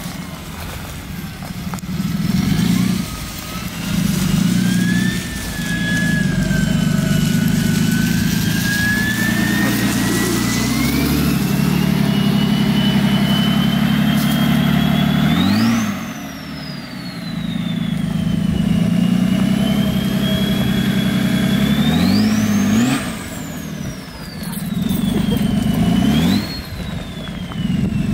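BMW M57 3.0-litre twin-turbo straight-six diesel in a Volkswagen LT40 van being driven, with a turbo whistle that climbs steadily as it pulls. In the second half the revs rise and fall three times, each time with the whistle swooping up sharply and dropping back.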